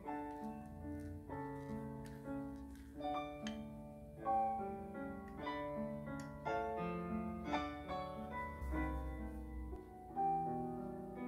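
Background piano music: a steady, unhurried run of single notes and chords.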